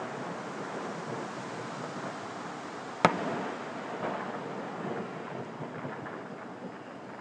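A distant aerial firework shell bursts once about three seconds in with a sharp bang, followed by a long rolling rumble over a steady background hiss.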